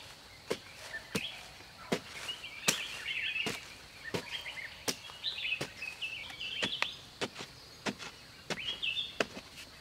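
A wooden digging stick jabbing into loose earth over and over, about one and a half strikes a second, while birds chirp.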